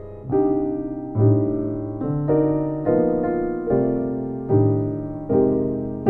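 A VSL Synchron sampled Blüthner 1895 piano, played through a dry patch, plays slow jazz chords. A new chord is struck about every 0.8 seconds, and each one rings and fades, with a deep bass note under several of them.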